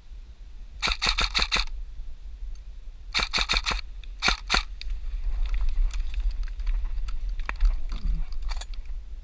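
Airsoft gun firing three short bursts of rapid shots, about eight a second, the third burst the shortest. Fainter scattered shots and rustling follow, over a low rumble of wind on the microphone.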